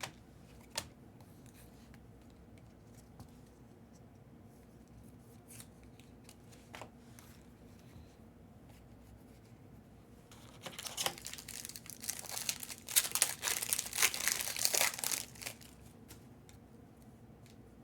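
A foil trading-card pack being torn open, its wrapper crinkling loudly for about five seconds in the second half. A few faint taps come before it.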